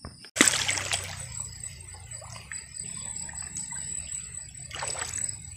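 Water splashing in a shallow stream: a sudden splash about half a second in and another near the end, over a steady trickling wash of water. A thin, steady high-pitched tone runs underneath.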